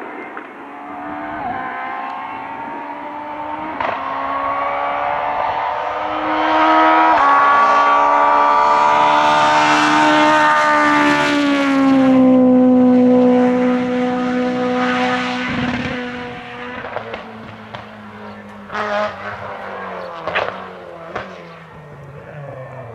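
Group F2000 rally car's naturally aspirated engine revving hard as it approaches. It is loudest as it passes, the pitch drops, and then it fades away. A few sharp cracks come near the end.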